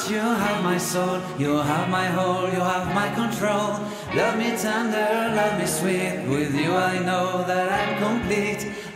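Background music: a song with singing over held low notes.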